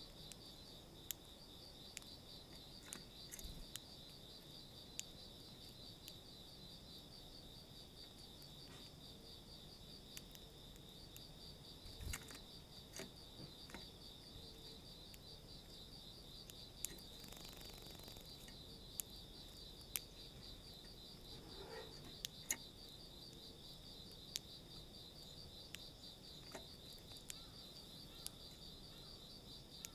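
Faint, steady high-pitched insect trilling that pulses rapidly without a break. Scattered sharp taps, the loudest sounds, from tree sparrows pecking seed in a plastic feeder tray.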